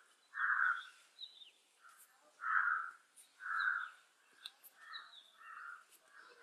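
A bird calling over and over, about five short calls a second or so apart, with fainter high chirps from smaller birds between them.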